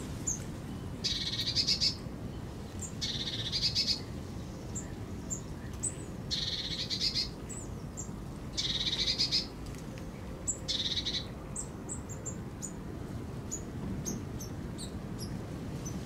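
Songbirds at a feeder: one bird sings a short, high trilled phrase five times, about two seconds apart, while other small birds give scattered short chirps throughout. A steady low rumble runs underneath.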